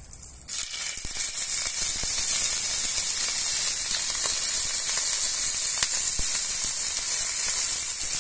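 Water poured into a hot, oiled non-stick frying pan of crusted gyoza dumplings, setting off a sudden, steady sizzle and hiss of steam about half a second in. This is the steaming stage of pan-fried gyoza, after the bottom crust has formed.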